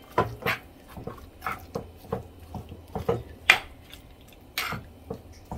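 A metal spoon scraping and knocking against an unglazed clay tagine while chopped onion is spread over chicken pieces: a run of short, irregular clinks and scrapes, about two or three a second.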